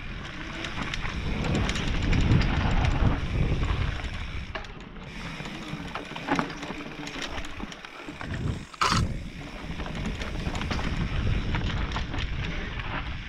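Mountain bike riding down a rough dirt forest trail: wind rushing on the microphone and tyres rumbling over roots and stones, with the bike rattling and clicking over the bumps. One sharp crack about nine seconds in stands out as the loudest single knock.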